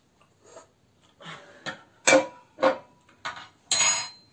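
Ceramic plate and cutlery clattering: about six clinks and knocks, the loudest around two seconds in with a short ring after it, and a longer rattle near the end as the plate is set down on the table.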